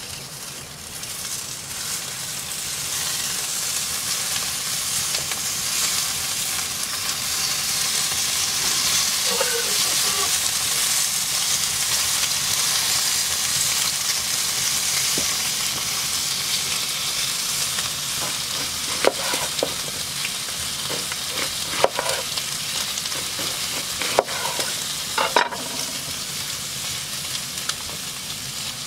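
Strips of bacon sizzling in a cast-iron pan over an open wood fire. The sizzle builds over the first few seconds after the bacon goes in, then holds steady. A handful of sharp clicks stand out in the later part.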